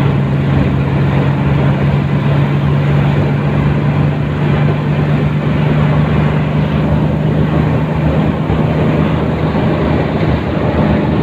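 A vehicle driving at a steady speed: a constant low engine hum under even road and wind noise.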